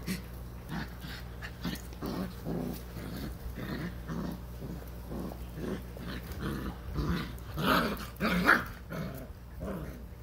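Six-week-old Vizsla puppies play-fighting, giving a string of short growls and yips, loudest about three-quarters of the way through.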